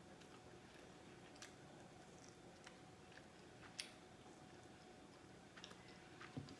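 Quiet chewing of food, with a few faint wet mouth clicks spread through, the sharpest about four seconds in.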